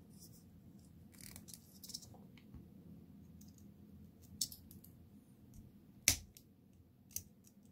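Small flush cutters snipping sections off a 3D-printed silk PLA spring: a few short, sharp clicks, the loudest about six seconds in, with faint handling of the plastic between them.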